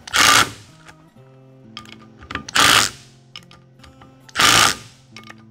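Cordless impact driver hammering in three short bursts of about half a second each, a couple of seconds apart. Each burst is the final tightening of one bolt on a pump gearbox cover after it has been run down finger tight.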